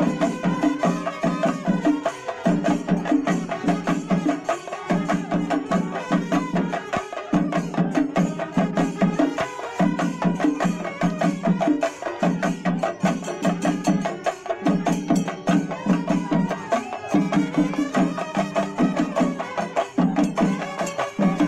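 Music driven by fast, dense percussion over a low pulse that repeats about once a second, with a melody line above.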